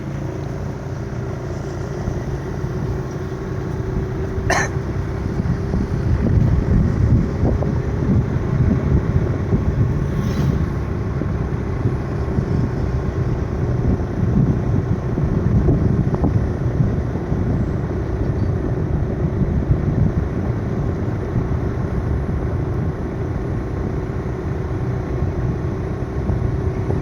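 A motor vehicle running steadily, heard as a continuous low rumble with a faint steady engine hum throughout.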